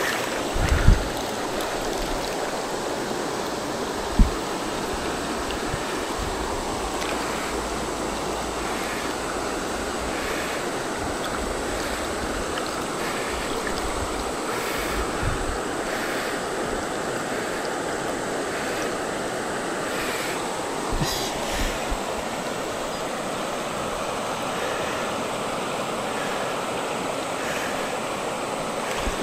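Shallow river running over stones, a steady rush of water. A few short low thumps stand out, the sharpest about four seconds in.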